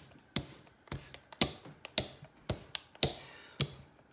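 Rolling pin working tortilla dough on a marble countertop, giving a sharp knock about twice a second in an even rhythm with the back-and-forth strokes.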